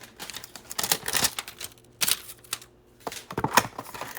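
Trading cards and their pack being handled by hand: irregular sharp clicks and short rustles of card and wrapper, coming in clusters.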